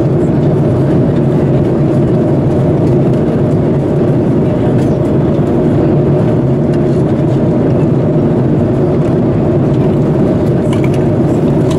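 Airbus A330-300 cabin noise at cruise altitude: a steady, loud, low drone of airflow and engine noise, with a few faint clicks.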